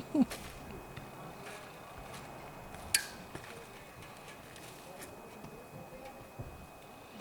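Quiet background with one sharp click about three seconds in and a few faint ticks.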